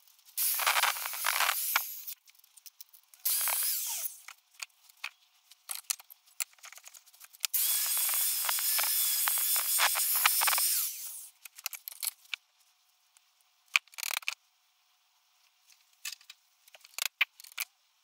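Angle grinder cutting and grinding a steel part in a vice, in three bursts, the last and longest about three and a half seconds. After it, light metallic clicks and taps as the small parts are handled.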